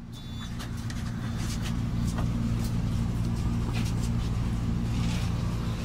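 City bus engine idling at a stop, a steady low hum heard from inside the bus, fading in over the first second, with scattered light clicks and rattles.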